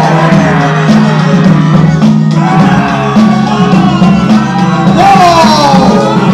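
Loud music with a heavy, pulsing bass line and sliding melodic lines above it, played over the PA speakers.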